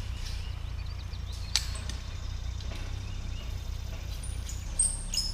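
Steel cattle panel being slid into a livestock panel connector on a T-post: a sharp metal click about a second and a half in and a few light clinks near the end, over a steady low rumble.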